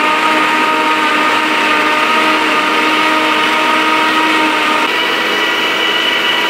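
Countertop jug blender running at speed, churning pancake batter: a loud, steady motor whine.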